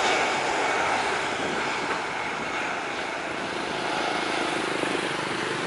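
Jet engines of a Batik Air airliner moving along the runway: a steady, rushing jet noise that slowly eases off.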